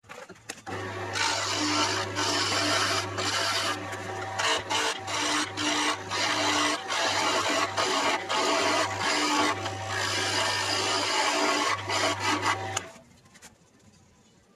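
Wood lathe running while a skew chisel cuts a square segmented wooden keyring blank on a pen mandrel down to round: a loud, rough scraping over a steady motor hum. The cutting and hum stop suddenly about 13 seconds in.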